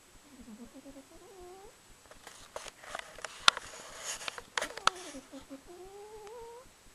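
Domestic cat snoring in her sleep: pitched, whistling breaths that slide up and down, with a noisier, rasping stretch in the middle broken by a few sharp clicks. The owner, who says she rarely snores, blames the cold weather.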